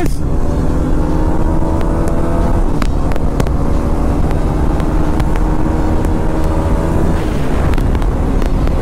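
Motorcycle engine running at a steady cruising speed, heard from the bike it is on, with a low wind rumble on the microphone. The engine note eases down slightly near the end.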